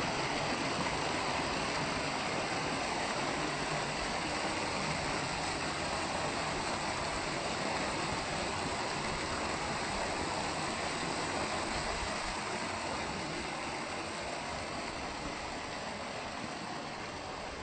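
Rushing river water, a steady full hiss that eases slightly near the end.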